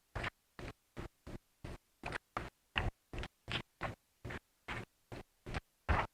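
Corrupted lecture audio: short bursts of garbled sound, about three a second, with dead silence between each, a stuttering glitch in the recording.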